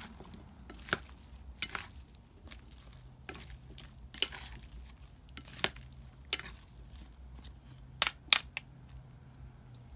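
Dressed mixed salad being tossed in a bowl with pink plastic salad servers. Soft rustling and scraping of lettuce and vegetables, broken by irregular sharp taps of the servers against the bowl, two of them close together near the end.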